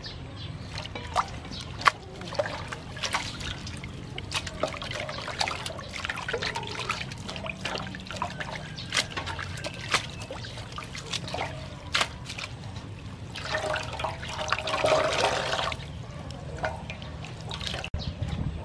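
Hands swishing and squeezing wakame seaweed in a basin of water: small splashes and drips, with a louder spell of splashing and dripping a few seconds before the end.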